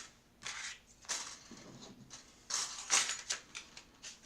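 Rustling and light clinking as a set of thin metal cutting dies is handled, in several short bursts, loudest about three seconds in.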